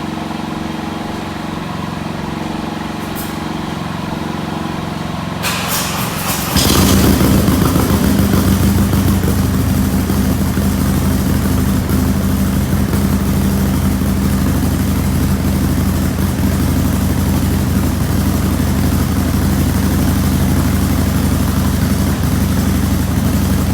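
A Harley-Davidson Road Glide Special's Milwaukee-Eight V-twin engine starting about six seconds in, after a steady low hum, and settling into a steady, even idle. It runs on freshly replaced exhaust gaskets that were put in to cure a leak at the front header.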